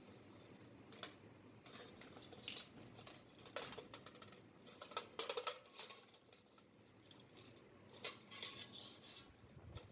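Faint, scattered clicks and light scrapes of small parts being handled, with a short cluster of them about halfway through, over a soft background hiss.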